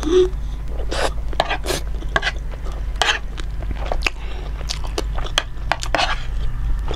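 Close-miked chewing of chicken momo: irregular wet mouth clicks and smacks, with a few short breathy puffs in between, over a steady low hum.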